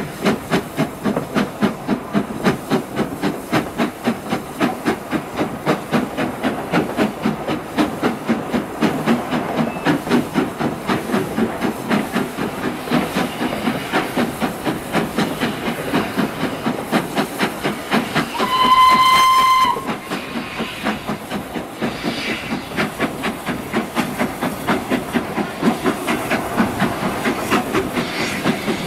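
Steam locomotive 8572, an LNER B12 4-6-0, working ahead of the train: a steady rhythm of exhaust beats, about three to four a second, over the running of the train on the rails. About two-thirds of the way through, a steam whistle sounds once for about a second.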